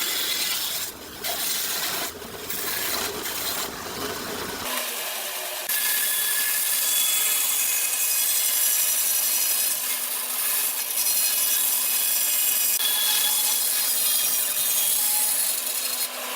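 A tool working wood: uneven rubbing strokes for the first few seconds, then a steady, even rasping from about five seconds in.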